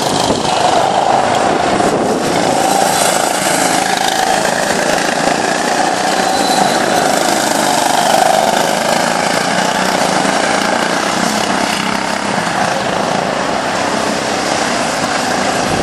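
Several go-karts' small engines running on the track, a steady loud buzz whose pitch wavers slightly as the karts accelerate and pass.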